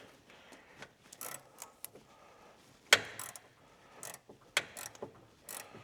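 Hand ratchet wrench clicking in short, irregular runs, with a sharper metallic knock about three seconds in.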